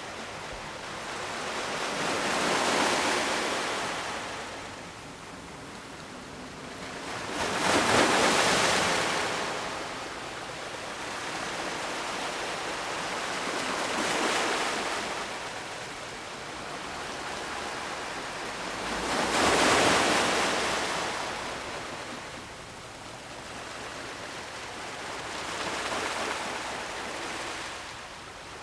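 Ocean waves breaking and washing up on the shore, rising and falling every five or six seconds, the biggest swells about a third of the way in and two-thirds of the way in.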